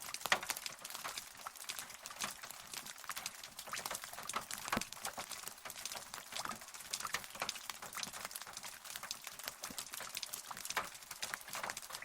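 Rain falling steadily: a dense, irregular patter of separate drops.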